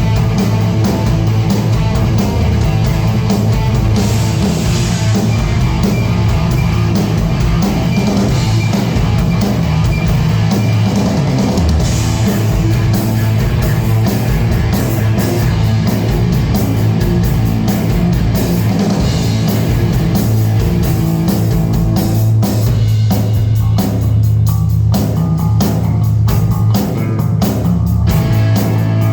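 Rock band playing loudly at a soundcheck: electric guitar over a drum kit, with a heavy low end.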